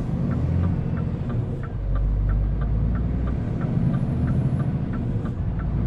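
Scania R 450 truck's diesel engine pulling under load, heard from inside the cab. About one and a half seconds in, the sound dips briefly as the automated gearbox makes a quick upshift, then the engine pulls again at a lower note. A light ticking runs along, about three times a second.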